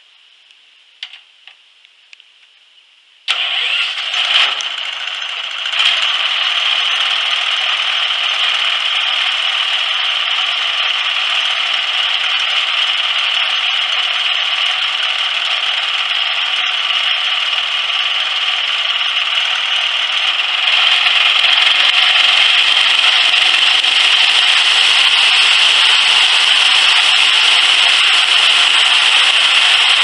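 Small gas engine on a homemade bandsaw sawmill being pull-started: a few short clicks, then it catches about three seconds in and runs steadily. It gets louder about twenty seconds in.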